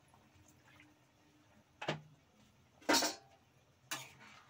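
A spatula knocking and scraping against the kadai three times while water is stirred into the gravy. The middle knock, about three seconds in, is the loudest.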